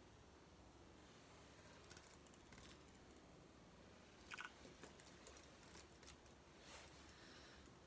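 Near silence: faint room tone with a few soft taps and rustles of hands and clothing as he signs, the clearest cluster about four and a half seconds in.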